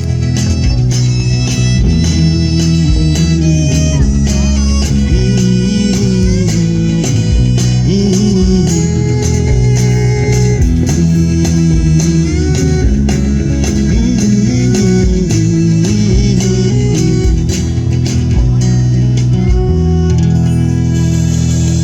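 A live rock band plays an instrumental passage with guitar over bass and a steady drum beat. About twenty seconds in, the band settles onto one held chord.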